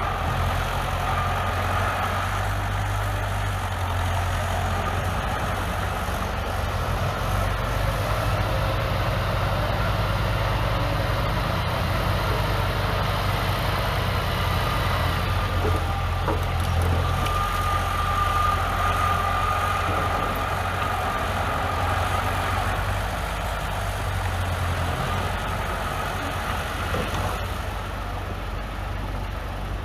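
Bulldozer's heavy diesel engine running steadily at low speed, with a faint steady whine above the engine note.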